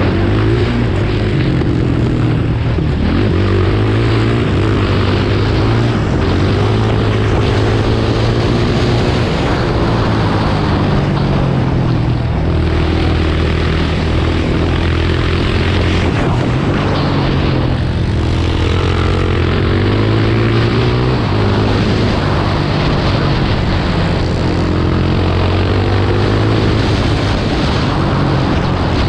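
Supermoto motorcycle engine at racing speed, revving up and dropping back again and again as the rider accelerates, shifts and brakes through the corners, heard close from the onboard camera with a rushing noise over it.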